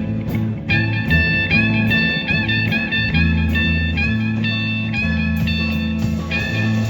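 Live band playing a blues-style number: a lead guitar plays short notes, several bending in pitch, over a steady bass line.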